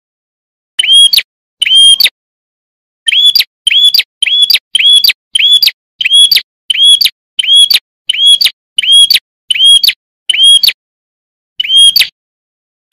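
Prinia (prenjak) calling: a long series of short, loud, identical chirps, each a quick hooked note, coming about two a second through the middle with slightly longer pauses near the start and end.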